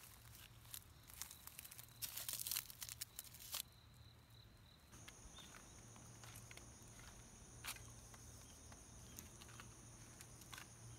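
Faint crackling and rustling of dry weeds and leaves for the first few seconds. Then a steady high-pitched insect trill with a few light clicks.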